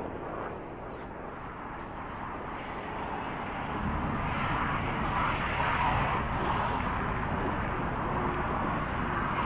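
Steady city traffic noise, growing louder about four seconds in.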